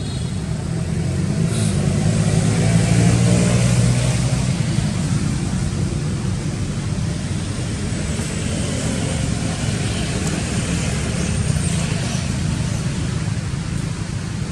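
A motor vehicle engine running with a steady low rumble, louder between about two and four seconds in.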